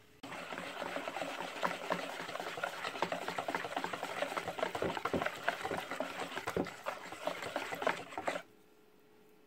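A wire whisk beating thick, runny cake batter in a mixing bowl: rapid, continuous whisking with many quick ticks of the wires against the bowl. It stops abruptly about a second before the end.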